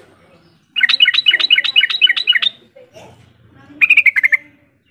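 Yellow-vented bulbul calling: a rapid run of about a dozen bubbling notes lasting under two seconds, then about a second later a shorter phrase that falls in pitch.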